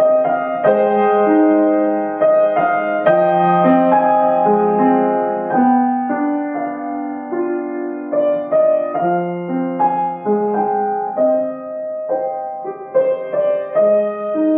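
Solo piano music: a melody over held chords, the notes changing every half second or so.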